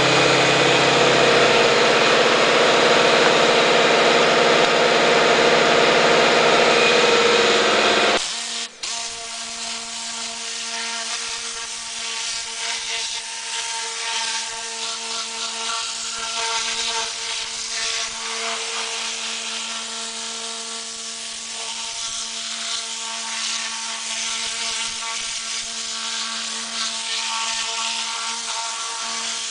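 Tornador compressed-air cleaning gun blasting air in a loud, steady rush; about eight seconds in it cuts off suddenly and a quieter, steady hiss with a held droning hum takes over.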